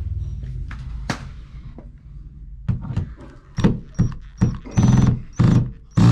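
Cordless drill/driver driving a screw to fix a Google Nest thermostat base plate to the wall, run in short trigger pulses: about eight quick bursts starting about three seconds in, after a single click.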